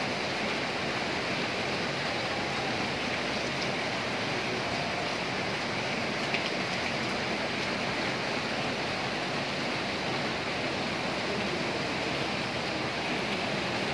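Fast, muddy floodwater of a river in spate, rushing steadily.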